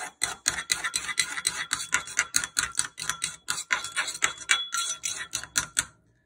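Metal spoon clinking rapidly against a ceramic bowl, about five clicks a second, as vinaigrette is beaten to emulsify the oil into the vinegar and mustard. The clinking stops near the end.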